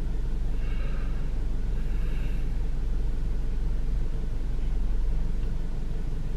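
Steady low rumble inside a parked car's cabin, with two faint, brief higher tones about one and two seconds in.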